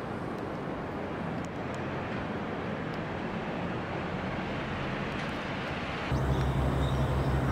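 Steady city traffic noise from the road alongside. About six seconds in, a louder low hum with a regular throb sets in abruptly.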